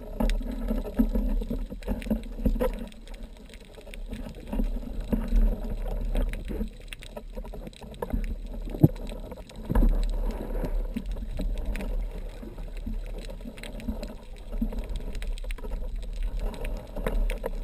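Muffled underwater sound of water moving around the camera, with scattered clicks and knocks as a speargun and its shooting line are handled. A sharp click about nine seconds in is the loudest.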